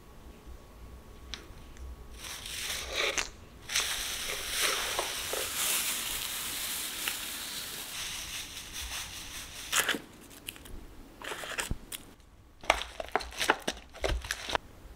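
Shredded crinkle-paper box filler rustling and crinkling as handfuls are pulled out of a box, a dense run starting about two seconds in. After a short lull, a hand rummaging among the packed items sets off a quick cluster of sharp crinkly crackles near the end.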